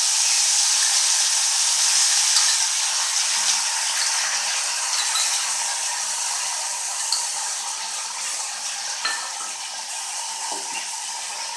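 A pan of hot oil tempering with mustard seeds, curry leaves and green chillies sizzling hard after water is added, the sizzle dying down gradually, with a few light clinks of a spoon stirring in the pan.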